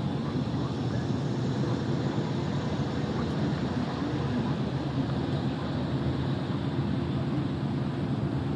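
Truck driving at steady speed: an even, low engine drone and road rumble with no change in pace.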